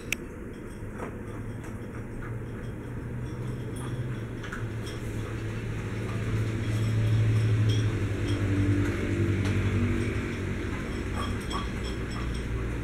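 Miniature schnauzers eating dry kibble from bowls: scattered small crunches and clinks of snouts and kibble against the bowls. A low steady hum runs underneath, loudest in the middle.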